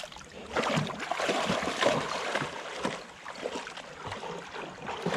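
A Rottweiler wading through shallow river water, splashing unevenly, the splashes loudest in the first two seconds.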